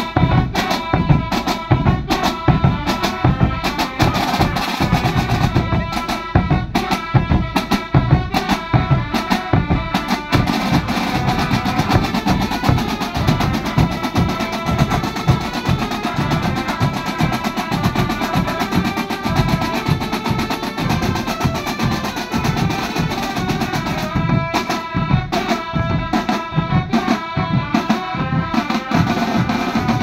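A drum band playing: a row of brass-shelled side drums beating fast, dense patterns over large bass drums, with a melody line sounding above the drums, clearest near the end.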